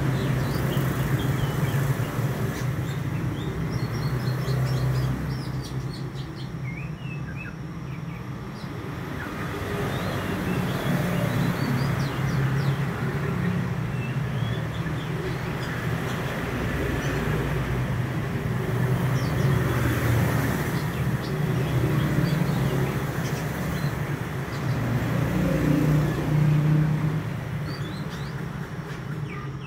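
Young male Oriental magpie-robin giving short, high chirping song notes on and off, over a louder steady low rumble.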